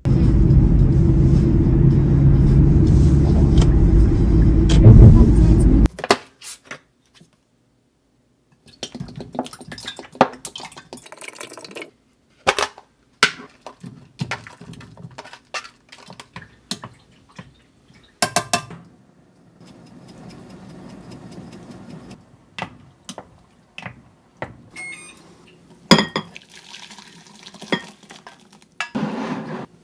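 Loud, steady low rumble of a moving vehicle heard from inside, cutting off suddenly about six seconds in. Then kitchen handling sounds: scattered clinks and knocks of a plastic container, a saucepan and stoneware dishes as meat is tipped into a saucepan of broth and the soup is poured into a bowl.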